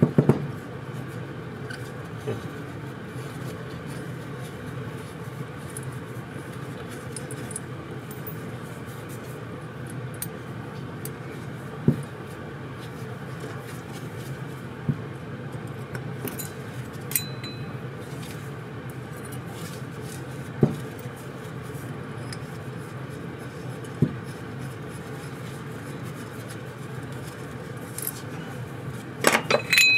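Scattered clicks and clinks of small metal carburetor parts and tools being handled on a workbench, a few seconds apart with a quick cluster near the end; a couple of the clinks ring briefly. A steady low hum runs underneath.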